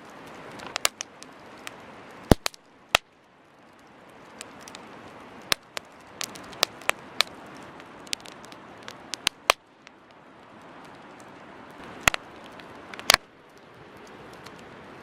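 Wood campfire burning: a soft steady hiss with irregular sharp crackles and pops, a few louder pops a little after two seconds, at three seconds and twice near the end.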